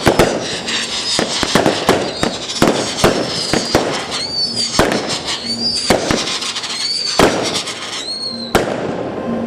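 Consumer fireworks going off in a rapid barrage of sharp bangs and crackles. From about the middle there are four short high whistles. The barrage stops with a last bang about a second before the end.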